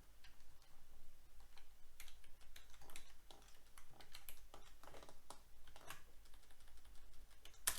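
Typing on a computer keyboard: a run of quick, irregular key clicks, with one sharper click near the end.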